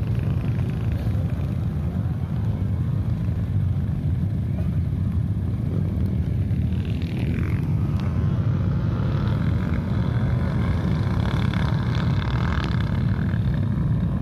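Trail motorcycle engine running under way, with a heavy steady low rumble; about seven seconds in the pitch drops, and a higher revving note carries through the second half.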